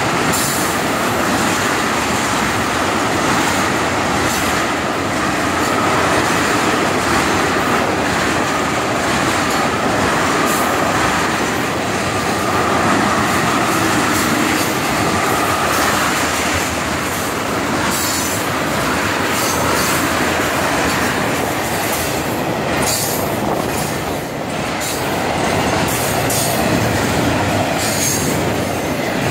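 Freight train cars rolling past close by, first tank cars and then double-stack container well cars: the steady rumble and rattle of steel wheels on rail, with a thin ringing squeal from the wheels. From about two-thirds of the way in there are sharp clicks from the wheels.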